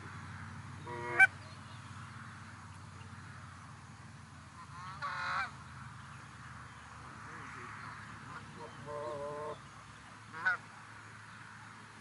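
Goose honking in four separate calls: a sharp, loud honk about a second in, a longer one around five seconds, a steadier, quieter one near nine seconds and a short one near the end.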